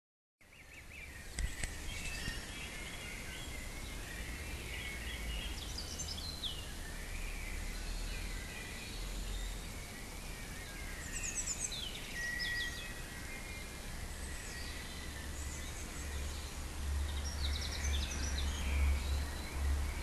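Spring woodland birdsong: several birds singing short chirping and trilling phrases at once, over a steady low rumble.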